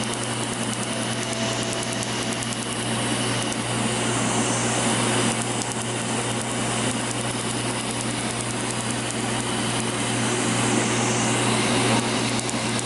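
Tattoo-removal laser firing a rapid train of sharp snapping pulses, over the steady blowing and low hum of a cold-air skin chiller.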